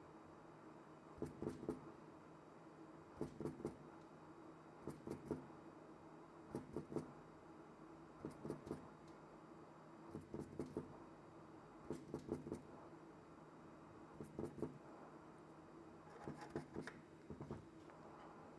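Short scraping strokes of a small hand tool on an iPhone 13 logic board, most likely taking off the underfill glue. The strokes come in little groups of two to four about every two seconds over a faint steady hum.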